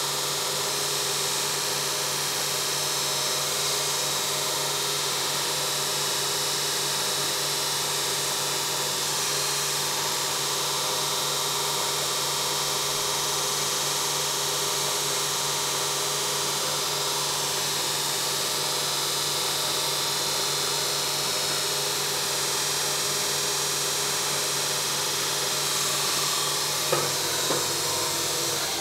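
A 2x42 belt grinder running steadily: an electric motor hum under the hiss of the abrasive belt grinding steel. Two sharp knocks come near the end.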